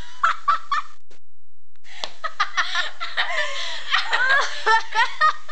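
Girls laughing in quick repeated bursts, falling silent for about a second near the start, then breaking into laughter again.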